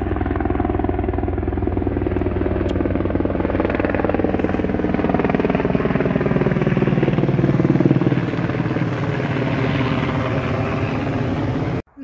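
Helicopter flying low overhead with a steady, loud rotor chop and engine whine. It is loudest about eight seconds in, its pitch sinking a little as it passes, and it is taken for a flight carrying wounded. The sound cuts off suddenly just before the end.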